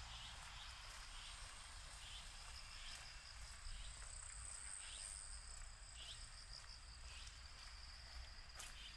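Faint insects calling: a steady high buzz with short chirps repeating about once a second, over a low rumble. A sharp click comes near the end.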